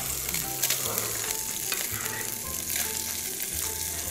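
Sole fillets sizzling steadily as they sear in a hot, lightly oiled non-stick frying pan, with a few light clicks of metal tongs turning them.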